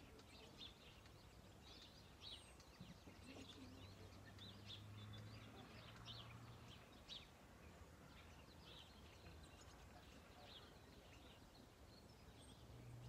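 Near silence with faint small-bird chirps, short high calls scattered throughout, and a faint low steady hum in the middle.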